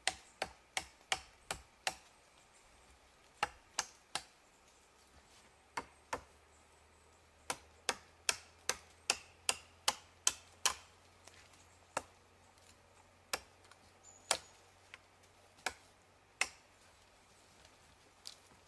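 Sharp chopping blows of a hand-held blade against a birch pole, knocking off its knots and side twigs. The blows come in irregular runs, several a second at the busiest, with short pauses between.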